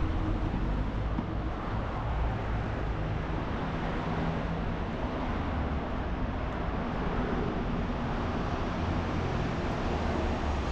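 Street traffic: a steady wash of passing vehicles with a low engine hum underneath.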